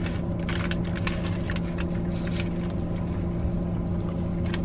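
Crinkling of a foil potato-chip bag as a hand reaches in, then chips crunching while being chewed: a scatter of sharp crackles over a steady hum inside the car.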